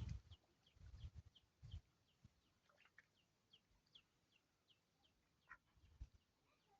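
Faint bird peeping: a run of short, high, falling chirps, two or three a second, with a few low thumps in the first two seconds.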